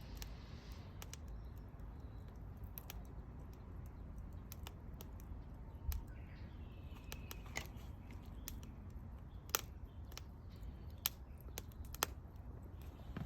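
Wood fire crackling, with sharp irregular pops over a low steady rumble; the loudest pops come about nine and a half and twelve seconds in.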